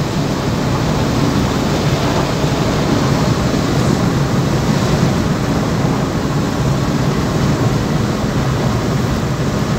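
Steady road noise of a car travelling at highway speed, heard from inside the cabin: an even rumble of tyres and wind.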